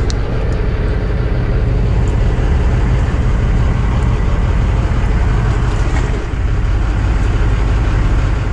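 Steady low mechanical rumble with an even hiss over it, unchanging throughout.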